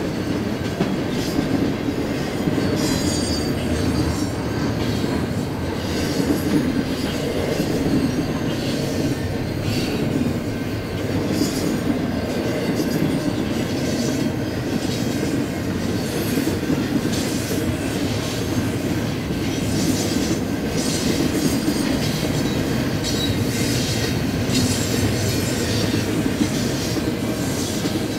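Double-stack intermodal container well cars rolling past: a steady rumble of steel wheels on rail, with wheel clatter and brief high-pitched wheel squeals scattered throughout.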